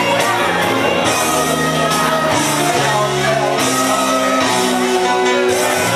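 Loud music with singing, playing without a break.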